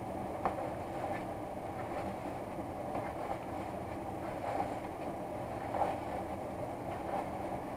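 A spoon stirring penne, chicken and Alfredo sauce in a plastic mixing bowl, with a few soft clicks of the spoon against the bowl, over a steady background hum.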